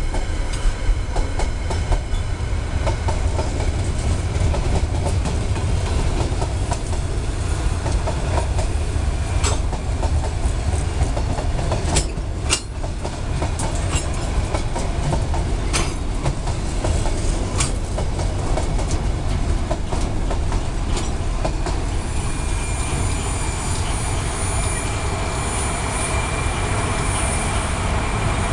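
Freight train of container spine wagons and covered boxcars rolling past: a steady rumble with scattered wheel clacks over the rail joints. Near the end a high, thin wheel squeal joins in.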